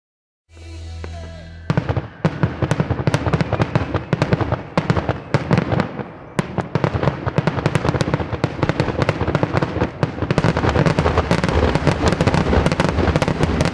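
Daytime fireworks display: a dense, rapid barrage of sharp cracks and bangs starts about two seconds in and keeps going without a break.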